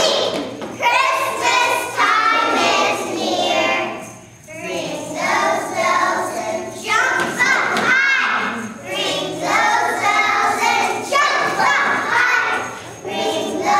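A group of young children singing together as a choir, with small jingle bells worn on their hands ringing along.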